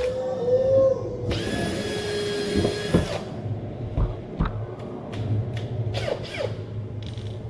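A power tool runs for about two seconds, starting about a second in, then stops, followed by scattered knocks and clicks.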